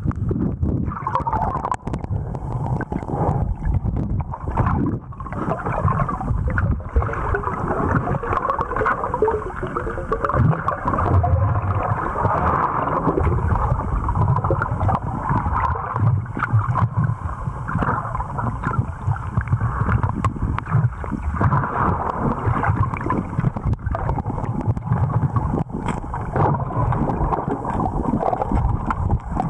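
Muffled rushing water and handling noise from an underwater camera housing as a freediver swims, with frequent small clicks and knocks throughout.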